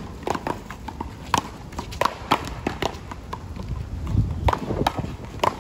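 Sharp, hollow knocks of a one-wall paddleball rally: the hard rubber ball cracking off paddles and the concrete wall at uneven intervals, thinning out after about three seconds.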